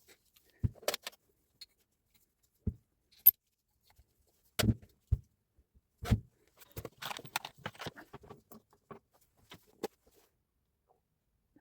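Scattered knocks and clicks of metal tool parts being handled, some with a dull thud, and a stretch of light rattling and clinking about seven to eight seconds in.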